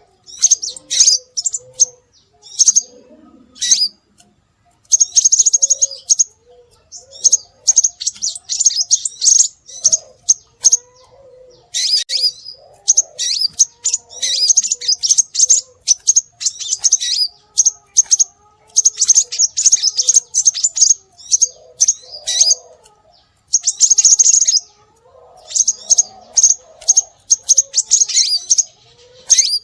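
Scarlet minivet calls: rapid runs of high, thin chirps in bursts of a second or two with short gaps, repeated over and over as a lure recording for attracting minivets.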